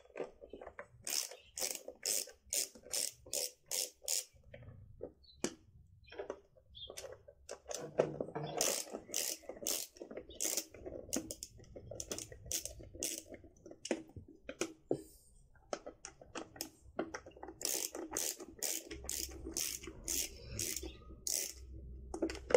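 A screwdriver backs out the screws of a motorcycle's plastic air filter cover, making runs of quick, evenly spaced clicks, about three a second, in three bursts.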